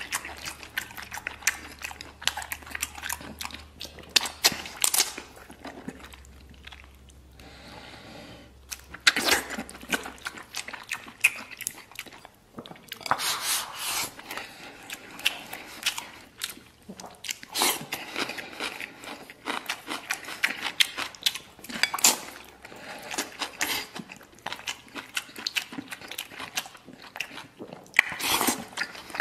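Close-miked wet chewing and mouth smacking of braised pork large intestine and rice, with frequent short clicks and slurps and brief pauses between bites.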